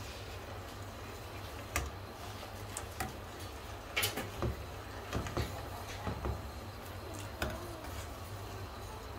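Steel ladle clinking and scraping against a stainless steel kadhai while milk is stirred as it reduces: irregular sharp knocks, about ten in all and most frequent in the middle, over a steady low hum.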